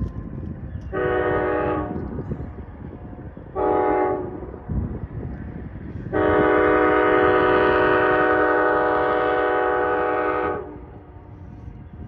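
Multi-chime air horn of an approaching Amtrak train's lead locomotive, a GE P40DC, sounding the grade-crossing signal: a blast of about a second, a shorter blast near four seconds, then one long held blast of about four and a half seconds. A low rumble continues underneath.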